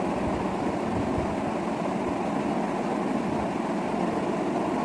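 Steady, unchanging whooshing hum of a running room fan.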